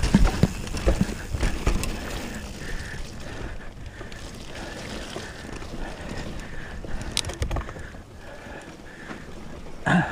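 Mountain bike descending a rough trail, heard through a GoPro mounted on the rider: a steady rush of wind and tyre noise, with the bike rattling and knocking sharply over bumps. The knocks come thickest in the first two seconds and again about seven seconds in.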